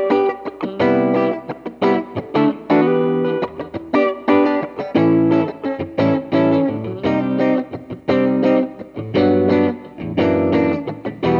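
Electric guitar played direct through a Line 6 POD HD300 amp-modelling processor. It plays a choppy riff of short chords and notes, each cut off quickly. A sustained chord starts right at the end.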